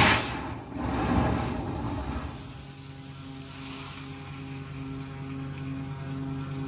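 Compressed air blasting leftover water out of a tanker's cargo pipeline through an open outlet: a loud rush of air and spray that surges twice and dies away after about two seconds. A steady low machinery hum with a slow pulsing tone remains.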